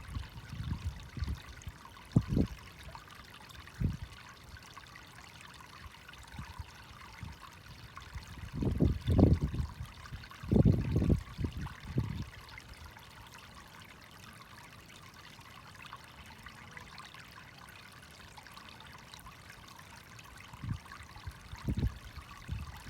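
Water trickling steadily, with a few irregular low rumbling bursts over it, the loudest about nine and eleven seconds in.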